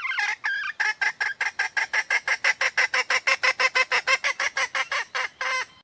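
Female red junglefowl calling: a longer opening note, then a fast, even run of short clucks, about six a second, ending on a longer note. It is a hen's call to a male.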